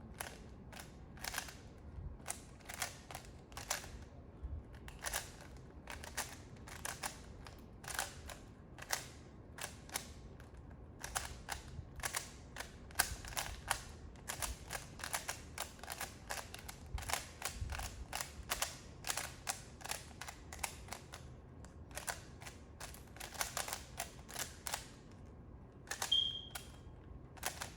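Plastic layers of a 3x3 Rubik's cube clicking as they are turned quickly during a speed solve: dense, irregular runs of sharp clicks with short pauses between them. A brief high tone sounds near the end.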